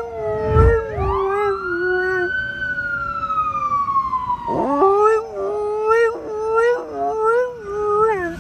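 A Samoyed howling along with a police siren. The siren's wail rises about a second in and slowly falls over several seconds before rising again, while the dog holds wavering howl notes over it.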